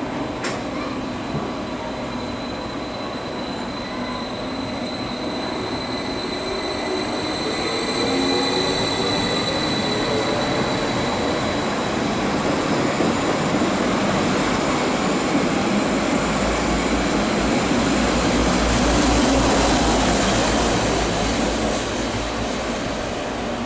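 Stadler FLIRT electric multiple-unit train moving slowly through the station, its wheels giving a thin, high, steady squeal. A deeper rumble builds about two-thirds of the way in and is loudest near the end.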